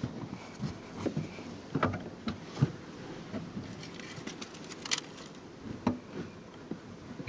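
Handling noise from hands working the rear seat cushion and its upholstery back into place: scattered soft knocks and clicks with fabric rustling, and a quick run of small clicks about four to five seconds in.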